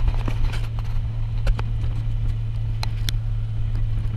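Steady engine and road drone heard inside a vehicle cabin while it drives towing a trailer, with scattered knocks and rattles.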